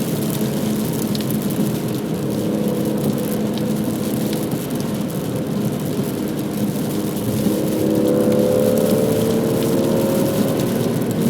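Stock BMW M3 engine running through its stock exhaust over a steady hiss. About two-thirds of the way in, the revs climb as the car accelerates.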